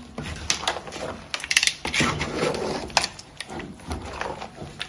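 A spoon stirring soup in a cooking pot, with irregular clicks and knocks against the pot.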